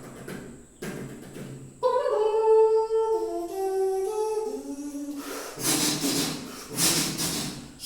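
A voice imitating a piece of music: a short hummed tune of held notes stepping up and down, followed near the end by breathy hissing bursts.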